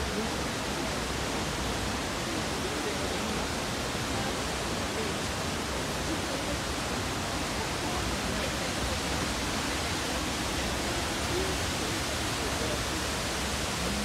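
Steady rushing of a waterfall: an even wash of white-water noise that neither rises nor falls.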